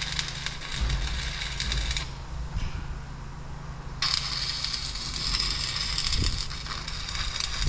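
Arc welding on a steel gate hinge: a steady crackling sizzle that stops for about two seconds in the middle, then starts again. A short knock comes right at the end.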